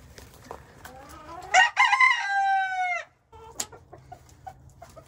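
A rooster crowing once, about a second and a half in. The call rises, holds a long note and drops off at the end.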